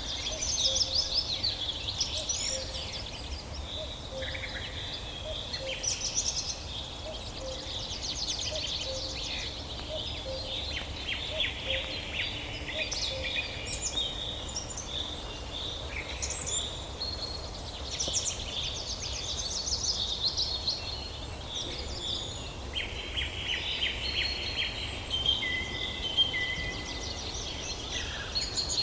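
Several birds singing and chirping at once, overlapping trills and quick whistled notes, over a steady low background rumble.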